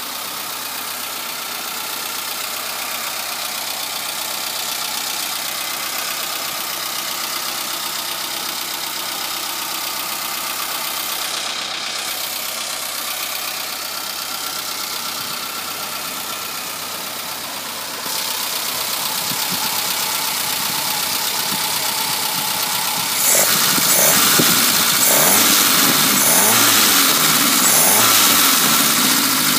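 Freshly rebuilt Suzuki Samurai 1.3 L carbureted four-cylinder engine running steadily at idle, then revved up and down several times near the end.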